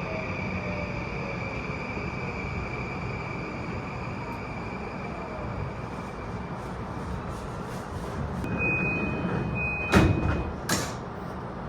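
Interior running sound of an E235 series 1000 electric train at speed: a steady rumble with a faint inverter whine gliding in pitch, and a high steady tone that fades out about halfway. Near the end come two loud clunks a little under a second apart, typical of the bogies crossing a rail joint or points.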